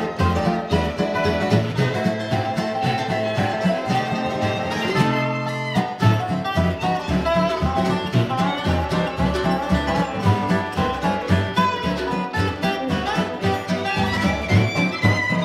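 Acoustic string band playing an instrumental break in a swing tune, with a dobro (resonator guitar played lap-style with a steel bar) taking the lead over strummed rhythm guitar and a steady low beat.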